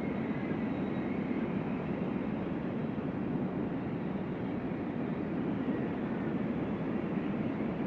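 Strong wind blowing, a steady rushing noise with a faint high whistle at times.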